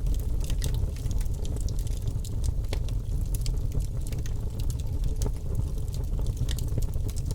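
Birch logs burning in a fireplace: the fire crackles, with frequent small sharp pops scattered over a steady low rumble of the flames.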